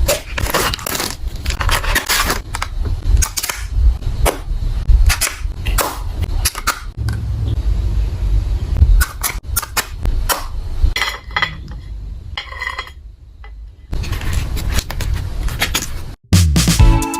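Cosmetic packaging and product cases being handled in an unboxing: a rapid string of sharp clicks, taps, scrapes and crinkles over a low rumble, easing off briefly before the end. Music with a beat comes in near the end.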